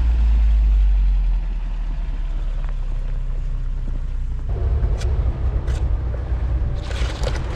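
Off-road 4x4 engine running with a steady low drone, its note shifting about one and a half seconds in and again about four and a half seconds in.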